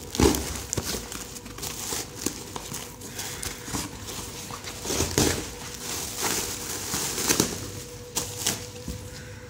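Plastic air-cushion packing pillows crinkling and rustling in irregular crackly bursts as they are handled and pulled out of a cardboard box.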